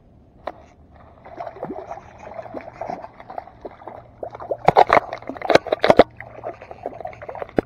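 A hooked trout thrashing and splashing at the water's surface, with a run of sharp splashes that are loudest a little over halfway through.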